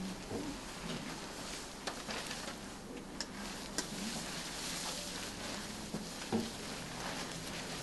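Disinfectant spray bottle squirting onto nitrile-gloved hands in a few short sprays, and the gloved hands rubbing together, with faint rustling of a protective coverall.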